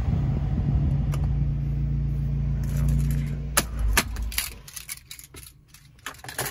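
Fiat 500 Abarth's turbocharged 1.4-litre four-cylinder idling, heard from inside the cabin, then cut off suddenly a little past halfway through as the engine is switched off. A few sharp clicks and light knocks follow.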